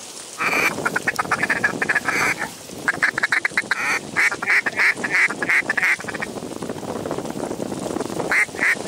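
Rapid runs of duck quacks, several short notes a second, in bursts, with a pause of about two seconds before they start again near the end.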